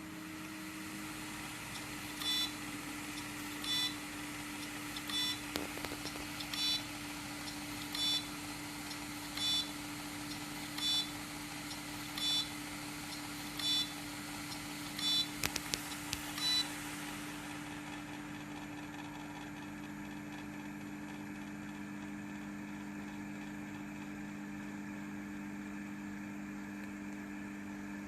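Seagate Barracuda 2 TB SATA hard drive beeping: eleven short, high beeps about one and a half seconds apart over a steady low hum, stopping a little past halfway through, with a few sharp clicks near the last beeps. The owner suspects a damaged read/write head; the drive shuts down after the beeps.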